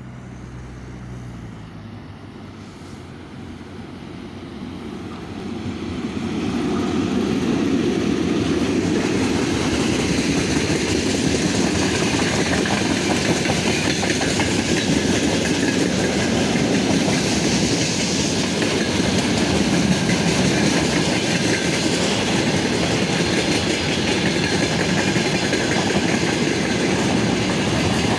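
Soviet VL80K electric locomotive coasting with power off at the head of a freight train. It grows louder over the first six seconds as it nears, then the train rolls past steadily, wheels rumbling and clattering over the rail joints.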